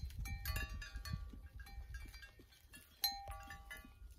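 Livestock bells on a moving flock of sheep and goats clanking irregularly, several bells at different pitches. The sharpest strike comes about three seconds in.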